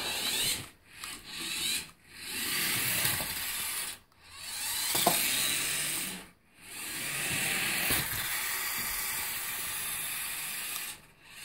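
Radio-controlled toy car's small electric motor and gears whirring in repeated runs, stopping and starting several times, the longest run lasting about four seconds near the end.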